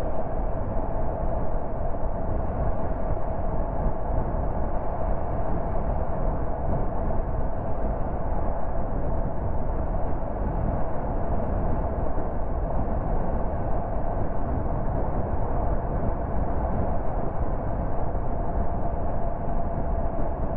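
Car cruising at steady motorway speed: continuous road and tyre noise with engine hum, and a steady mid-pitched tone over it.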